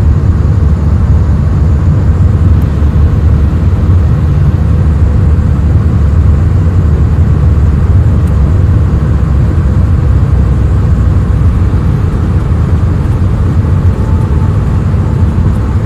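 Steady low rumble of a jet airliner in flight: engine and airflow noise heard from inside the passenger cabin.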